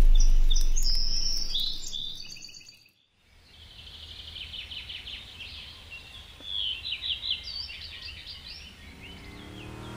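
A deep low rumble fades away over the first three seconds and cuts to silence; then songbirds chirp and trill repeatedly over faint outdoor background hiss. Near the very end a car engine begins to rise as it approaches.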